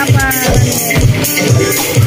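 Background music with a steady beat, a little over two beats a second.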